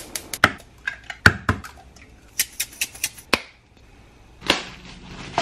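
Sharp, irregular clicks and knocks of kitchen handling at a gas stove as eggs are cracked into a frying pan, about a dozen over the first three and a half seconds, then a short hiss about four and a half seconds in.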